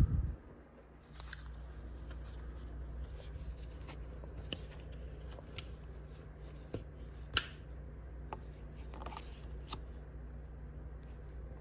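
Small sharp clicks and light scraping of an Outer Banks hatchet multi-tool being handled, with a loud thump right at the start and the sharpest click about seven seconds in, over a steady low hum.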